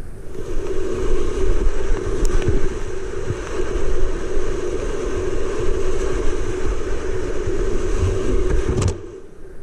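Whitewater rapids of a creek in high water rushing close around a kayak, a steady, muffled noise with a few sharp splashes. The noise drops off sharply about nine seconds in.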